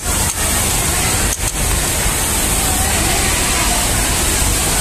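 Steady garment-factory background noise: a loud, even hiss over a low hum, with no clear rhythm.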